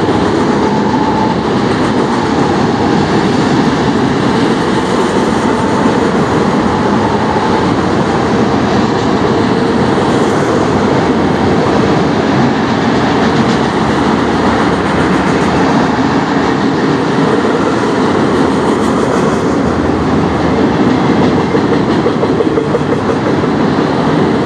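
CN manifest freight train's autorack cars rolling past, a steady, loud noise of steel wheels running on the rails.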